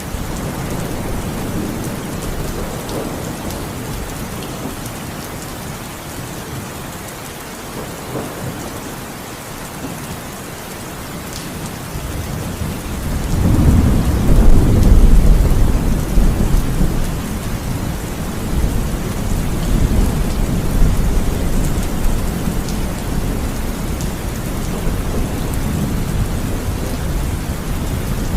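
Heavy rain falling steadily, with a long low rumble of thunder that swells about halfway through, is loudest for a couple of seconds, then fades back under the rain.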